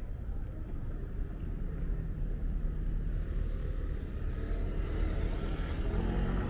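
Road traffic on a city street: a steady low rumble of passing cars.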